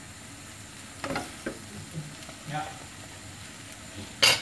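Rice vermicelli stir-frying in a nonstick wok, sizzling steadily while wooden spatulas toss and scrape the noodles. A sharp knock of a utensil on the pan near the end is the loudest sound.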